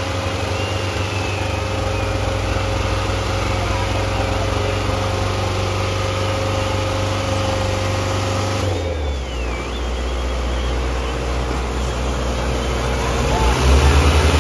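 Diesel tractor engines of a Sonalika and a Mahindra Arjun Ultra running hard under load as they pull against each other in a tractor tug-of-war. The engine note drops lower about two-thirds of the way in, then gets louder near the end.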